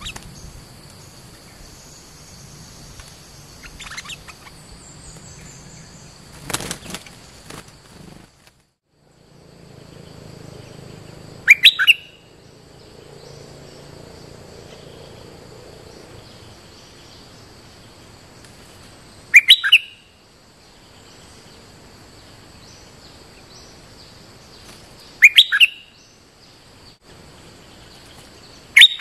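Caged decoy bulbul calling in short, loud bursts of a few quick notes, three times several seconds apart, with another burst starting at the very end. These are lure calls meant to draw a territorial wild bulbul to the cage.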